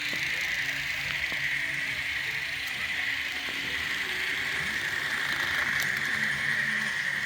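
Kato N-scale model train running on the layout's track: a steady mechanical whirr from the locomotive drive and wheels, with a few faint clicks.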